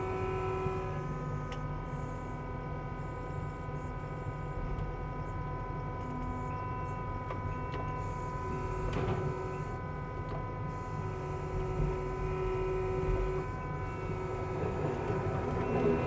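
Kubota SVL65-2 compact track loader's diesel engine running steadily, heard from inside the cab: a low drone with several steady whining tones over it, and a single knock about nine seconds in.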